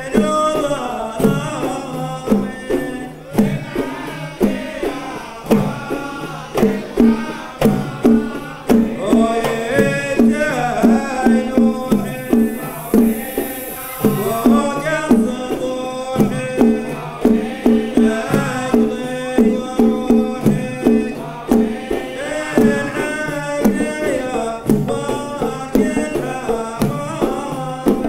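A men's chorus singing a Gulf folk song over frame drums and a drum beating a steady rhythm. About twelve seconds in, stage smoke jets hiss for a couple of seconds over the music.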